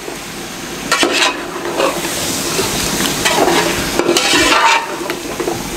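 Marinated chicken sizzling as it is browned in hot ghee in an aluminium pot, with a metal spoon scraping and knocking against the pot as it is stirred, loudest about a second in and again around four seconds in.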